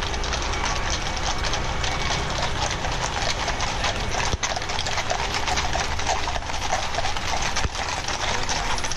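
Hooves of a large mounted escort of police horses striking the street: a dense, continuous clatter of many horseshoes at once, over a low steady rumble.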